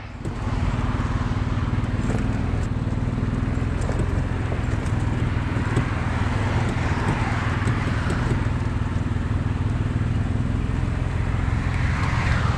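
Golf cart running with a steady low hum.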